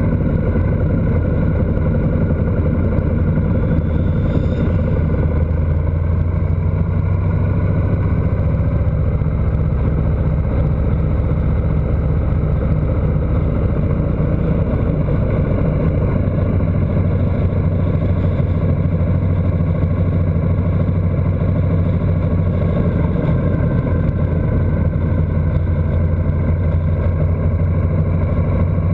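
Motorcycle engine running steadily at cruising speed, a constant low drone mixed with wind rush over the bike-mounted camera.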